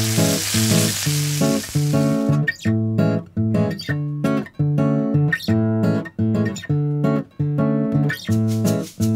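Chicken thighs sizzling in a frying pan for about the first two seconds, cutting off suddenly. Under and after it plays light bossa nova background music on acoustic guitar with a steady rhythmic beat.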